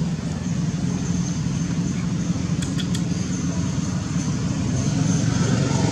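Steady low rumble of outdoor background noise, like distant traffic or a running engine, with a faint high-pitched hum over it and a couple of brief clicks about two and a half to three seconds in.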